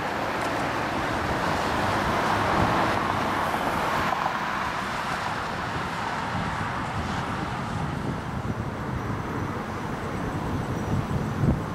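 Road vehicle noise: engine and tyre sound at a steady level, a little louder for a couple of seconds early on and easing later.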